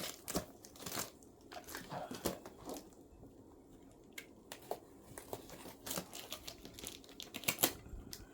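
Packaging handled as a box is unpacked: irregular crinkling and rustling with scattered light clicks and knocks, the loudest cluster near the end.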